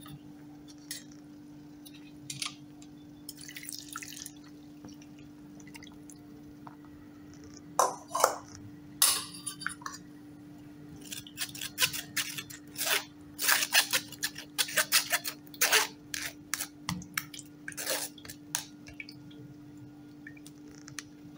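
Green chutney water dripping through a fine mesh strainer into a steel bowl. From about the middle on, a steel spoon scrapes and taps against the mesh as it presses the ground mint-coriander pulp, in many short strokes over a steady low hum.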